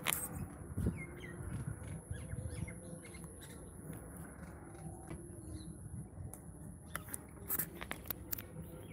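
Birds calling and chirping with short squawks, over a faint steady high whine and low rumble. A few sharp clicks come near the end.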